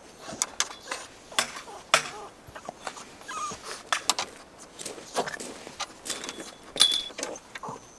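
Scattered sharp clicks and knocks, with a few brief high whimpers from a dog.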